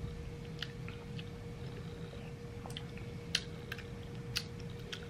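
Small wet mouth clicks and lip smacks, about eight short ones spread out, as a just-sipped drink is tasted, over a faint steady hum.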